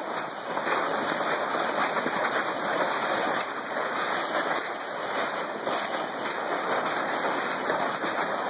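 Plastic sled sliding over packed snow as it is towed, a steady scraping hiss.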